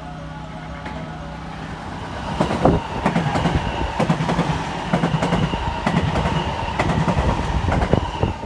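A JR West 225 series electric train runs past along the platform, getting loud about two seconds in. Its wheels click rhythmically over the rail joints, over a steady whine and a rumble.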